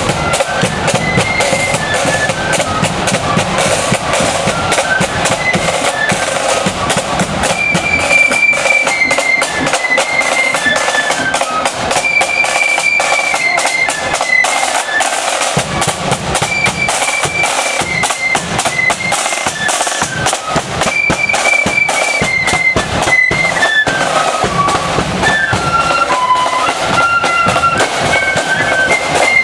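Marching flute band playing a march tune: high flutes carry the melody over a steady rattle of snare drums and a bass drum beat. The bass drum drops out for several seconds about nine seconds in, then comes back.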